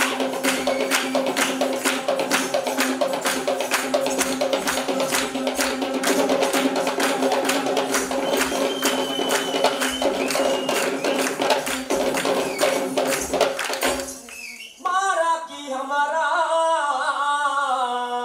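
Fast, dense hand-drumming on Kandyan drums, with a steady held tone beneath, stops abruptly about 14 seconds in. A single voice then begins to sing a chanted verse.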